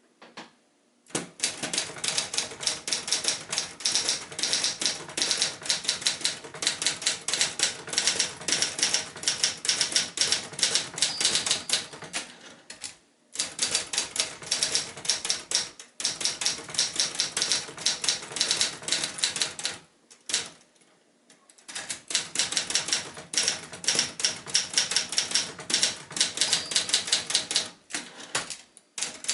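Typing on a 1965 Adler J4 portable manual typewriter: rapid key strikes and typebar clacks in long runs, broken by a few short pauses.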